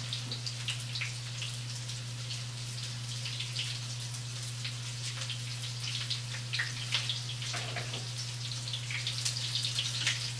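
Breaded chicken frying in oil in a pan, with light, irregular crackling and popping over a steady low hum.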